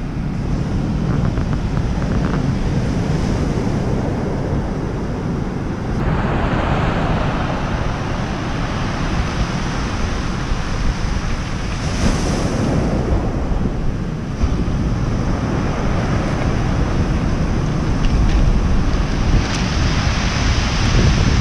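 Ocean surf breaking and washing up a stony beach, swelling louder every six seconds or so, with wind rumbling on the microphone.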